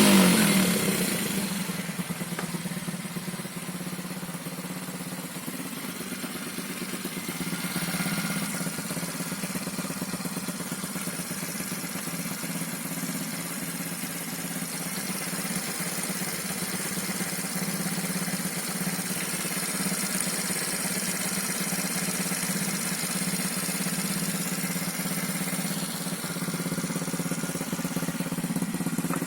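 Honda Z50 mini bike's small single-cylinder four-stroke engine idling steadily, its revs dropping back to idle in the first couple of seconds.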